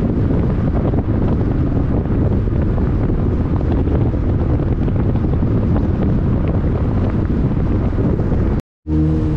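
Wind buffeting the microphone of a camera on a moving car, a loud, even rush with road and engine noise underneath. Shortly before the end the sound drops out for a moment and comes back as a steadier engine drone.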